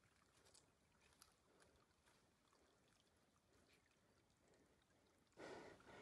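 Near silence with a few faint ticks. About five seconds in, a louder noisy sound starts abruptly.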